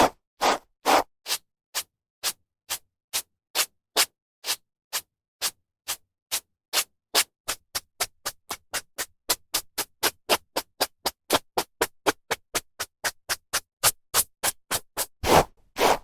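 A hairbrush drawn through hair in a run of short brushing strokes, about two a second at first and quickening to three or four a second in the middle, with a few longer, heavier strokes near the end.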